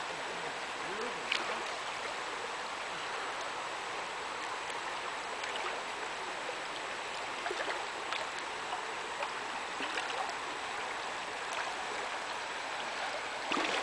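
A shallow river running steadily over rocks, with a few short, light splashes from a swimmer moving through the water.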